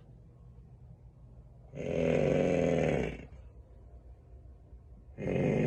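Snoring: one long snore about two seconds in, and the next starting near the end, in a slow, regular rhythm of about one snore every three and a half seconds.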